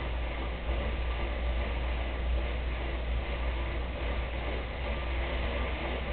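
Rear bicycle tyre spinning against the roller of an indoor stationary trainer as the rider pedals: a steady low whirring hum with an even hiss above it.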